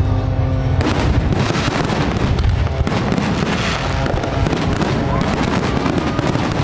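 Fireworks display: a dense, continuous crackle of many small bursts starts about a second in and keeps going.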